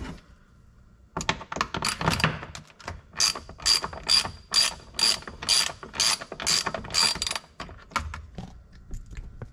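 Socket ratchet clicking as it turns a 10 mm nut or bolt, in a run of short strokes that settles into an even rhythm of about two a second.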